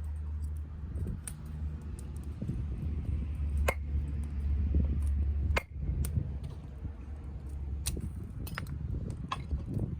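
Softwood fire burning in a small double-walled wood stove (a Chinese Solo Stove copy), crackling with scattered sharp pops over a steady low rumble.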